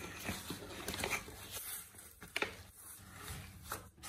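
Hands handling and lifting a white foam packing sheet out of a cardboard box: irregular soft scrapes and light knocks, with one sharper knock a little past the middle.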